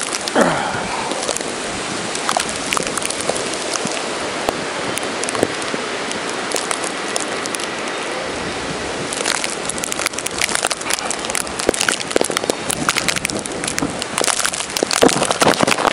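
Snowstorm noise: a steady hiss of wind and blowing snow, with scattered crackling ticks that grow dense and louder about nine seconds in.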